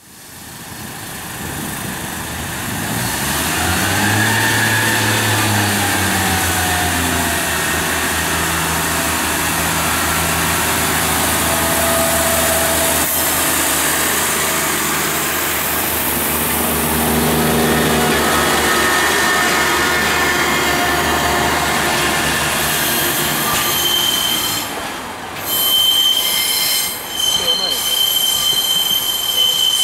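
A Northern Rail diesel multiple unit's engine throbs and revs up as the train pulls away along the platform, its note fading after about twenty seconds. Then a steady, high-pitched squeal of train wheels on curved track sets in and carries on.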